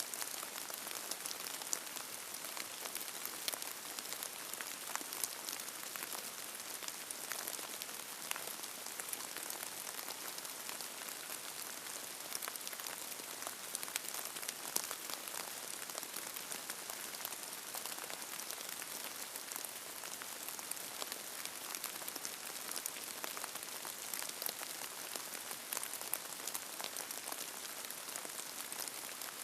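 Steady rain falling, with many individual drops ticking sharply on a surface and no thunder.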